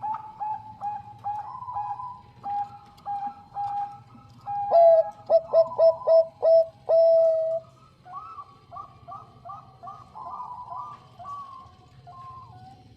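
Zebra dove (Bangkok-type perkutut) cooing: quick runs of short, clear, bubbling notes, with a much louder run from about five seconds in that ends on a longer held note, then softer notes again.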